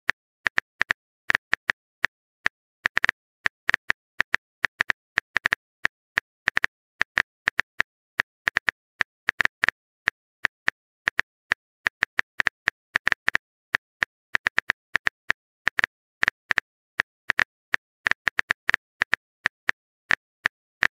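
Typing sound effect of a phone keyboard: short sharp taps at an irregular pace, a few a second, with silence between.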